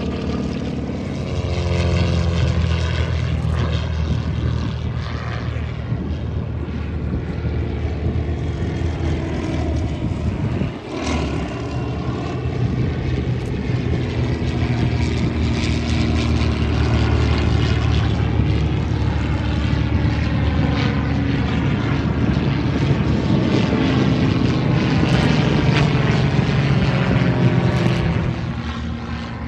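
Several single-engine propeller aerobatic planes flying a display overhead, their piston engines and propellers running steadily. The pitch slides up and down as they pass and turn, with a brief dip about eleven seconds in.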